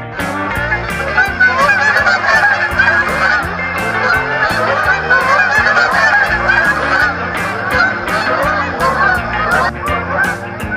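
A flock of Canada geese honking, many calls overlapping, over guitar music; the honking stops shortly before the end.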